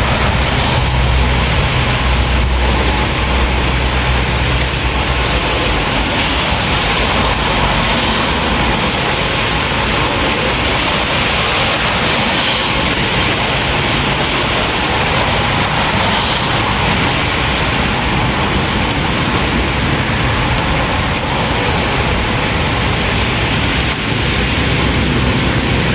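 Steady, heavy rainfall, a dense even hiss of falling rain. A low rumble runs underneath, strongest at the start and again near the end.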